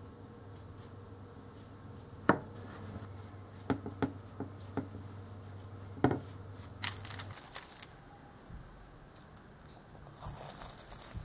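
A kitchen knife cutting through puff pastry sheets on a wooden cutting board, the blade knocking sharply on the wood several times over a few seconds, over a low steady hum that stops about seven seconds in.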